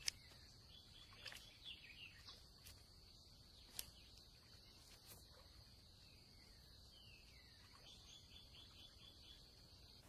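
Faint wetland ambience: a steady high-pitched drone, with small birds giving short downward-sliding calls, a quick run of them near the end. A few soft clicks come and go.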